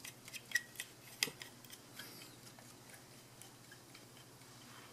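A few light metallic clicks in the first second or so as a flathead screwdriver works small screws out of the back of a classic VW Beetle speedometer housing, then only a faint steady hum.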